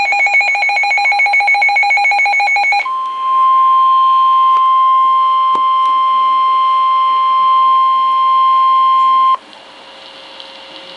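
Midland WR100 weather radio alarm: a rapid pulsing beep for about three seconds, then the steady 1050 Hz NOAA Weather Radio warning tone for about six seconds, which cuts off suddenly to faint radio hiss. The alert announces a flash flood warning.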